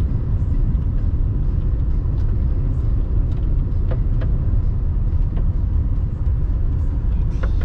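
Road noise heard inside a moving car: a steady low rumble of tyres on a snow-edged dirt road, with occasional faint ticks.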